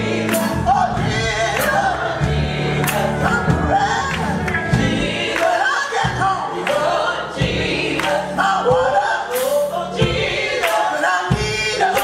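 Gospel song with a choir singing over bass and drums.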